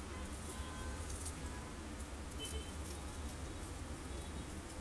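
A knife slicing a cooked shrimp on a wooden cutting board: a few faint, soft clicks over a steady low hum.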